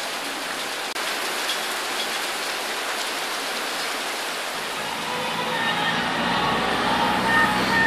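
Heavy downpour: steady rain falling on rooftops and pattering on surfaces. About five seconds in, a car's low running hum with a few faint steady tones over it comes in.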